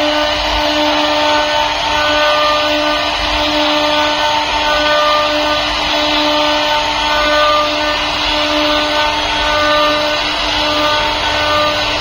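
CNC router spindle running with a steady whine as its bit carves a design into a door panel, over a constant hiss of cutting.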